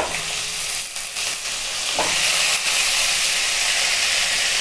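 Chunks of raw green mango dropped into hot oil in a kadai, setting off a loud sizzle of frying that grows fuller as more pieces go in. A sharp knock as pieces land at the start and again about two seconds in.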